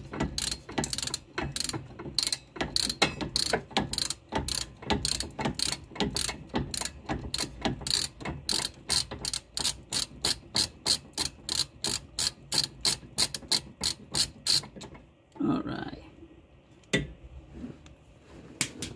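Hand ratcheting wrench clicking steadily as it spins a nut off the old sway bar end link. The clicks quicken to about four a second, then stop a few seconds before the end, followed by a dull knock and one more click.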